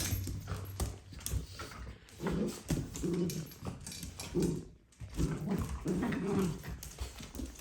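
A dog vocalising in a run of short, low growly grumbles, each about half a second long, with brief gaps between them.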